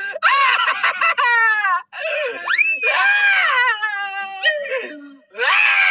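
High-pitched wailing and crying in a cartoon voice, in long drawn-out cries that swoop up and down and break off twice.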